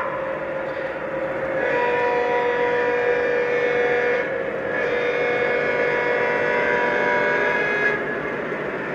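Lionel Legacy ES44AH model locomotive's onboard sound system blowing its RS3L-style multi-chime air horn in two long blasts: the first lasts about two and a half seconds and the second about three, with a short break between. Steady diesel engine sound from the model runs underneath.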